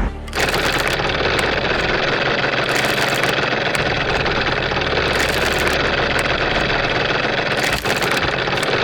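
An engine running steadily, with one brief dip about eight seconds in.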